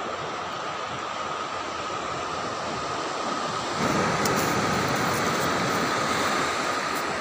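Steady rushing outdoor noise with a faint steady whine running through it. It grows louder about four seconds in, and a few light clicks follow.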